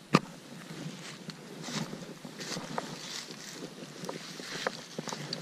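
One sharp click just after the start, then light handling clicks and rustling over a steady hiss of wind on the microphone.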